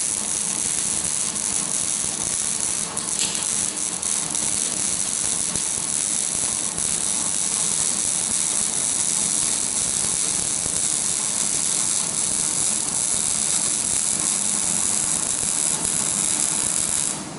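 Electric arc welding: a steady crackling hiss of the arc as a weld bead is run, cutting off abruptly near the end as the arc is broken.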